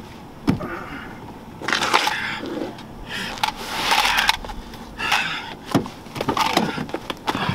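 A man grunting and gasping with effort in several short, strained bursts as he struggles up from the ground.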